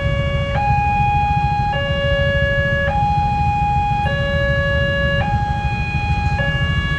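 Railway level-crossing warning signal sounding a two-tone alarm, switching between a higher and a lower tone about every second, as a train approaches, over a steady low rumble.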